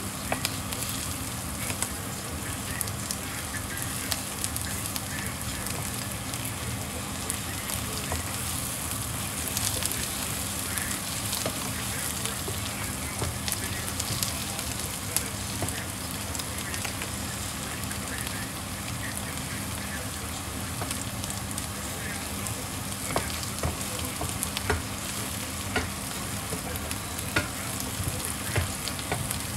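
Food sizzling in a frying pan, a steady hiss with frequent small crackles and pops throughout.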